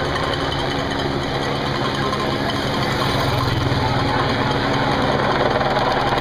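A race escort motorcycle's engine running as it climbs the road toward the listener, getting a little louder toward the end.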